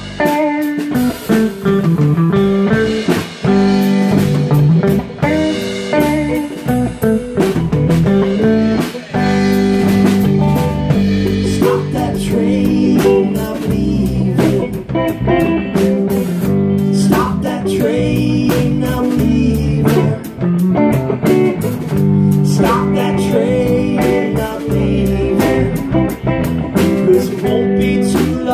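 Live band playing a song: electric guitars, bass and drum kit, with a man singing the lead vocal.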